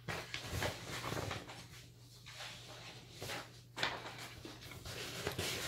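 Sheets of paper being shuffled and slid over a wooden tabletop: a few short, soft rustles and scrapes.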